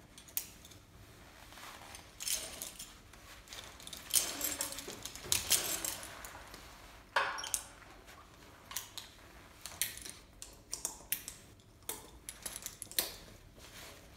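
Metal climbing hardware, carabiners and a Petzl ZigZag mechanical prusik, clinking and rattling as a climber hanging on the rope works the system. A longer rasp about four seconds in is the rope running through the gear.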